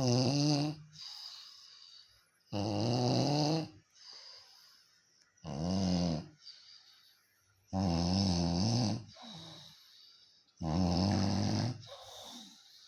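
A person snoring: five snores, each about a second long and about three seconds apart, with fainter breaths in between.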